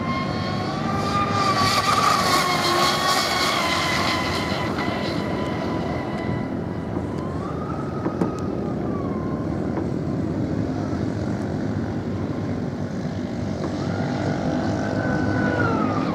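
Radio-controlled 12S electric offshore catamaran running flat out across the water: a high motor-and-propeller whine that bends up and down in pitch as the boat passes and turns, over the hiss of its spray. The whine is loudest a couple of seconds in and swells again near the end, dropping in pitch as it goes by.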